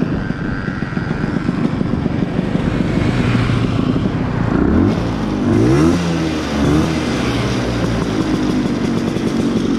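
Two-stroke Vespa scooter engine running hard under throttle during a fast ride, with wind buffeting the microphone. About halfway through, the engine note rises and falls a few times.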